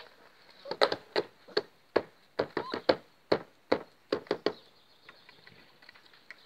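A hand slapping and tapping a hard painted concrete surface: about a dozen sharp, uneven taps over some four seconds, stopping about four and a half seconds in.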